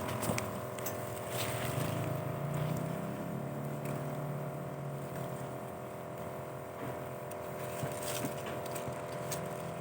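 A steady mechanical hum, like a small engine or motor running, with a few faint clicks.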